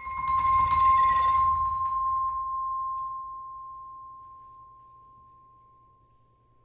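A single high metallic note struck on percussion, ringing on one pitch and slowly dying away over about six seconds, with a low rumble under its first two seconds.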